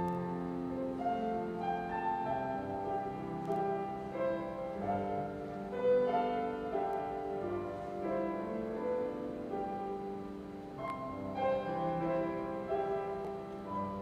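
Slow instrumental keyboard music, with notes held and overlapping in chords.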